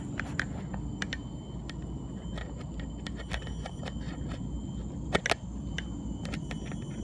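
Dualtron Ultra electric scooter being ridden over a rough dirt trail: a steady low rumble of tyres and wind, with scattered clicks and knocks from bumps and rattling parts. The loudest is a sharp double knock about five seconds in.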